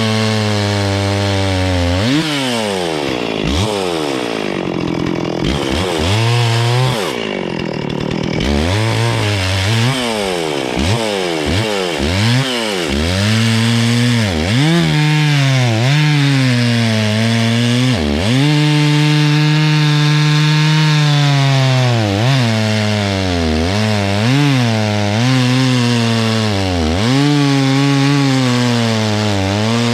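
Gas chainsaw cutting up a downed tree, its engine pitch dipping sharply and climbing back again and again as the throttle is worked and the chain bites into the wood.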